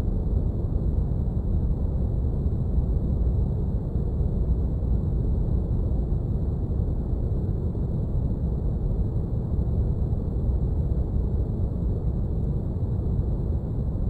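Spaceship cockpit ambience soundscape: a steady, deep brown-noise hum, heaviest in the low end, with no changes or events.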